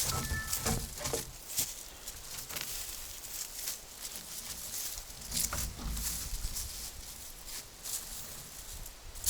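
Footsteps crunching on the ground, a step about every half second to a second.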